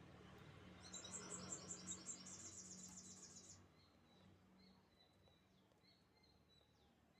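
Canary singing a fast, high trill for about three seconds, followed by a few faint, sparse chirps.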